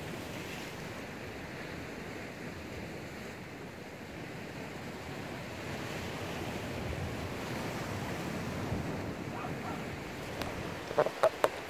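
Sea surf washing steadily, with some wind on the microphone. Near the end come three sharp clicks in quick succession.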